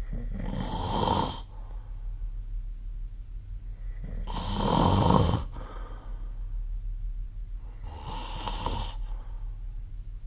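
A person snoring in their sleep: three snores about four seconds apart, the middle one the loudest and longest.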